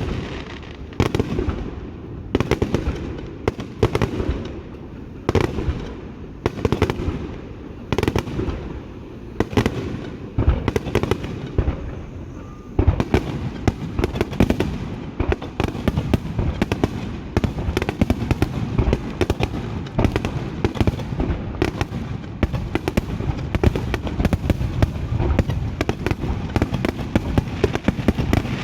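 Aerial fireworks bursting overhead. For the first half the booms come about one a second, each with a rumbling echo. From about halfway the bangs come much faster, a dense barrage of bursts and crackles several a second.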